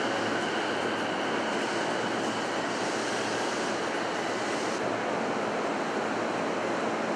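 Steady rushing noise of an electric train running along the underground platform, with a faint wheel squeal dying away in the first second. The highest hiss dulls about five seconds in.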